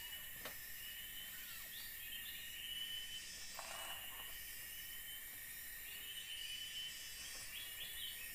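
Tropical forest insects drone steadily, with higher chirring calls that recur every couple of seconds. A brief rustle comes about halfway through.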